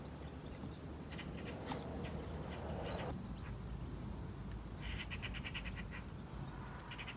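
A bird calling in rapid rattling bursts, each about a second long: once in the second half and again just before the end, over a steady low rumble.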